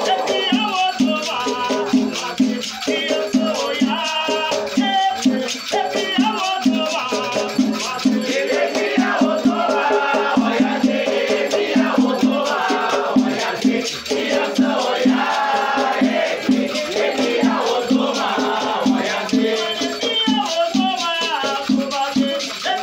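Batuque ritual music: voices singing a chant over a shaker rattling in a fast, steady rhythm, with a pulsing low beat underneath.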